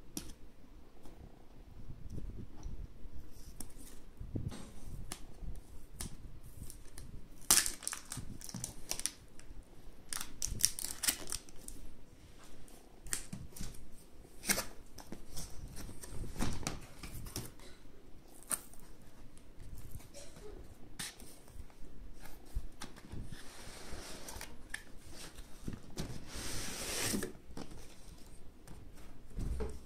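Cardboard graphics-card box being handled: the tape on its printed sleeve is worked open with scattered clicks, taps and rustles, and a longer scraping rub near the end as the inner box slides out of the sleeve.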